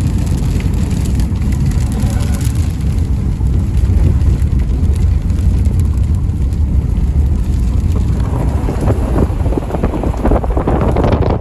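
Strong storm wind buffeting the microphone as a steady low rumble, with rain spattering, growing heavier about eight seconds in.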